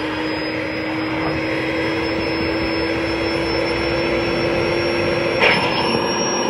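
Electric air pump running steadily as it inflates an air mattress. Its whine steps up slightly in pitch near the end.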